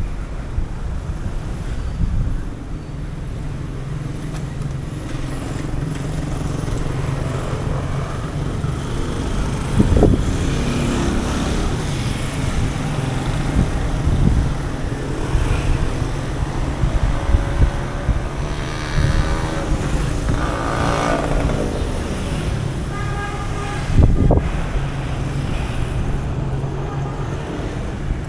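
Street traffic: a steady low rumble of cars and motorcycles, with a vehicle passing close about twenty seconds in. There are two sharp knocks, about ten seconds in and again near the end.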